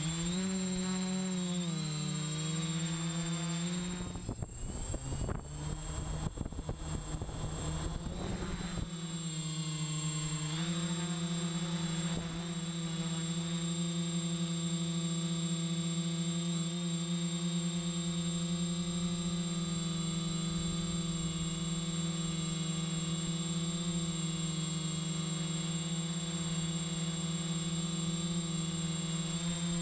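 Electric motors and propellers of a 3DR quadcopter, heard from a camera on the craft itself: a loud, steady propeller hum. The pitch wavers over the first few seconds as the throttle changes, and a rough rushing noise covers it from about four to nine seconds in. After that the hum holds steady.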